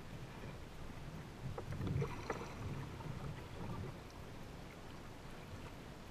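Kayak paddling: soft, irregular paddle strokes and water sloshing, with a few light knocks between about one and a half and four seconds in.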